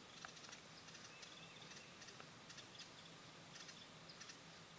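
Near silence: faint woodland ambience in light rain, with scattered soft ticks and a few faint, brief high chirps.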